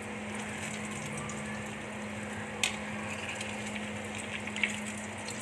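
Egg-dipped bread deep-frying in hot oil in a wok, a steady sizzle, with a metal spatula clicking against the pan twice as the slice is turned. A steady low hum runs underneath.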